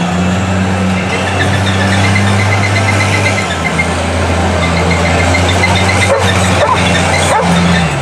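Mud truck's engine running hard at a steady pitch under load as the lifted pickup churns through deep mud. The pitch dips briefly near the end.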